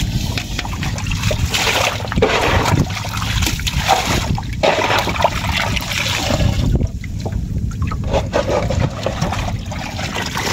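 River water splashing and trickling around a wooden fishing boat, with many small irregular splashes and drips.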